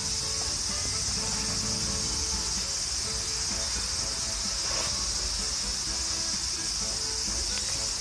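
Steady, high-pitched chorus of insects.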